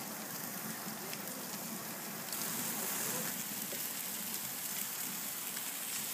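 Ribeye steaks sizzling on a mesh grill grate over an open fire, a steady hiss with faint crackles. The hiss grows louder about two seconds in.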